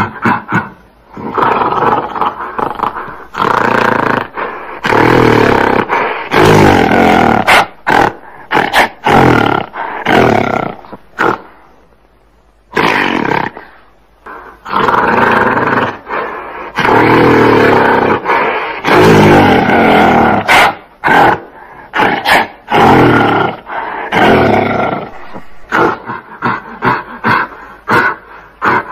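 Gorilla calls: loud bouts a few seconds long, separated by short pauses, turning into quick short calls near the end.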